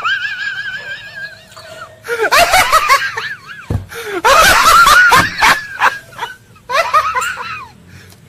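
A high-pitched laughing sound effect: cackling laughs in several bursts with short gaps, opening on one held high note.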